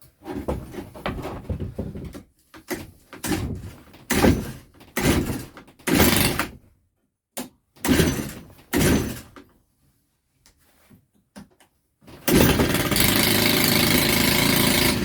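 Stihl FS130R strimmer being pull-started: a series of recoil-starter pulls, roughly one a second, with a cough of the engine on each. About twelve seconds in the engine catches and runs steadily and loudly.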